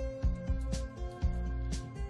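Background music with a steady beat, low notes moving in steps under held tones.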